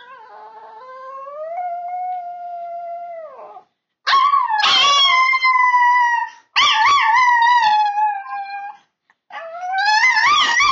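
Chihuahua howling: four long drawn-out howls with short breaks between them, the first quieter and lower, the others loud, the last wavering up and down in pitch.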